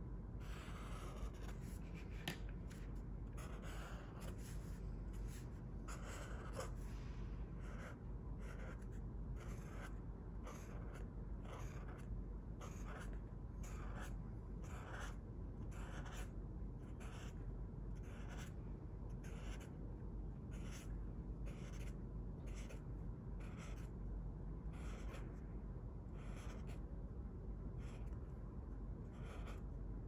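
Felt-tip marker stroking across sketchbook paper in short, repeated strokes, roughly one or two a second, over a faint steady low hum.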